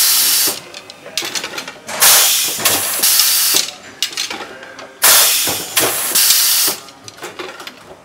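Sharp bursts of compressed-air hiss, each starting abruptly and tailing off over about a second and a half, about every three seconds, with light clicks of metal golf shafts being handled between them.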